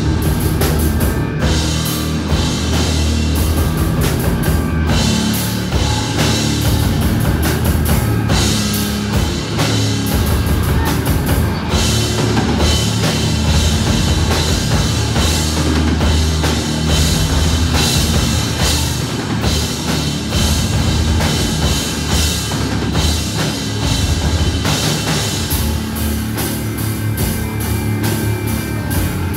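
Loud live rock band playing: electric bass and electric guitar over a drum kit.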